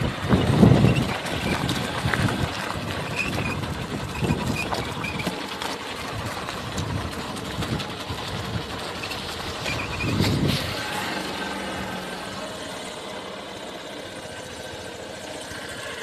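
A motor vehicle's engine running as it drives slowly over a sandy, stony dry riverbed, with wind rumbling on the microphone. It is loudest at the start, surges again about ten seconds in, then gradually gets quieter.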